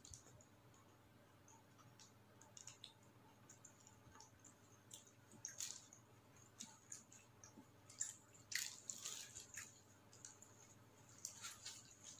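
Faint close-up chewing of a soft chicken burger: wet mouth smacks, squishes and small clicks, a little busier about two-thirds through.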